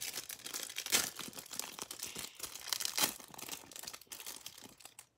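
Thin clear plastic wrapper crinkling and tearing as hands open an individually wrapped mochi squishy toy: a rapid run of crackles, louder about a second in and again about three seconds in, thinning out near the end.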